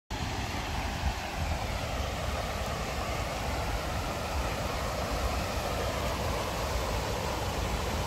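Steady rushing of water spilling down a small stepped stream channel over rocks, with a low rumble underneath.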